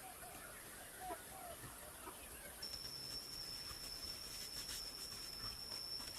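A run of short, arched animal calls in the first two seconds, then a steady high-pitched whine, typical of an insect, starts a little before halfway and holds.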